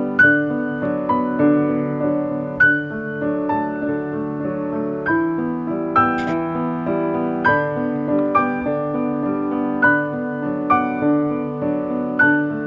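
Background piano music: a slow melody of struck notes over held chords.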